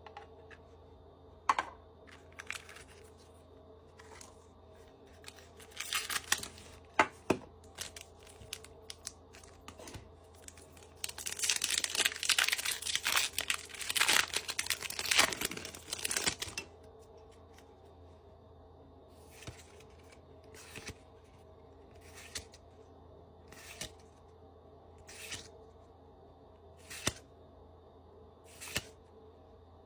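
Handling clicks, then several seconds of tearing and crinkling as a Pokémon booster pack's foil wrapper is ripped open, followed by short swishes about every second and a half as trading cards are slid one by one through the hand.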